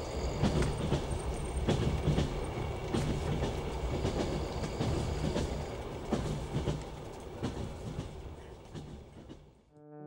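Passenger train running, heard from inside a sleeper carriage: a steady rumble with irregular knocks of the wheels over the rails. It fades out near the end.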